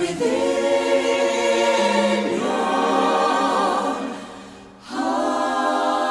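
Choir singing long held chords, sounding a cappella, with a short break about four and a half seconds in before the next chord.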